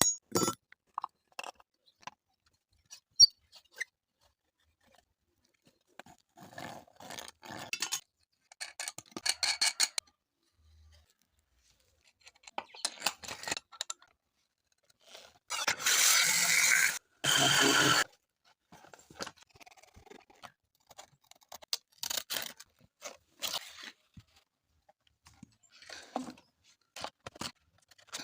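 Scraping, crunching and clinking of metal work on a knife with a drill-driven sander, in short bursts with pauses. About halfway through, the drill-powered sander runs loud and steady for about two seconds, stopping briefly once in the middle.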